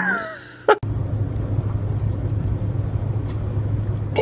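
A short gliding voiced sound fades out, then after a click the steady low rumble of a car running begins and carries on evenly.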